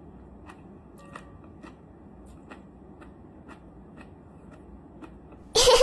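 Close-up chewing of crunchy jellyfish head, about two faint crunches a second. Near the end there is one much louder, brief burst.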